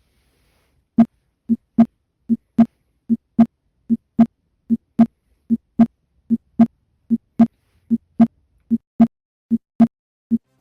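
Heart sounds heard at the aortic area through a stethoscope: a steady lub-dub at about 75 beats a minute, starting about a second in. Each beat is a pair of short low thumps, with the second one (the closing of the aortic and pulmonary valves) louder, and nothing heard between the beats.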